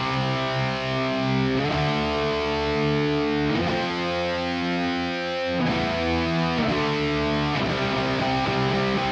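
Distorted electric guitar run through the ML Sound Lab ML800 amp-sim plugin, a Marshall JCM800-style high-gain tone, on its American Rock preset. It plays a riff of held chords that change about every one to two seconds.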